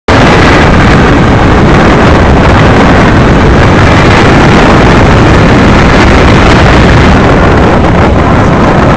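Loud, distorted wind rush buffeting the camera microphone during a tandem paraglider flight: a steady roar of airflow with no other sound standing out.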